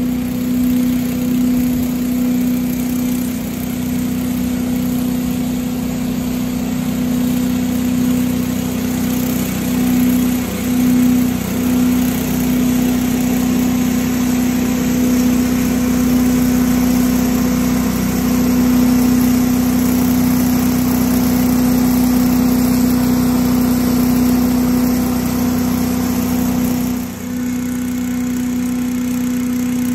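Tractor-mounted 8-horsepower Little Wonder leaf blower running steadily at working speed, a constant engine-and-fan drone. The sound dips briefly and shifts slightly near the end.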